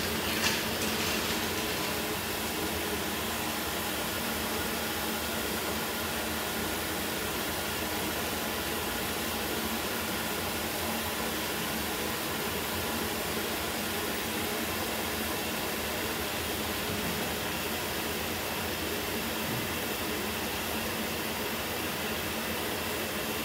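Electric soybean grinder running steadily while it mills soaked soybeans with water into slurry, a constant hum with hiss. A brief knock sounds about half a second in.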